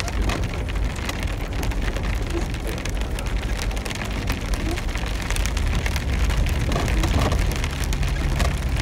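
Rain pattering on a Jeep's roof and windshield, heard from inside the cabin, over a steady low rumble of engine and tyres on a rough dirt road.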